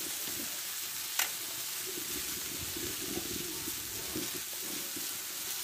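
Sliced ash gourd frying in oil in a karai, a steady soft sizzle, with one sharp click about a second in.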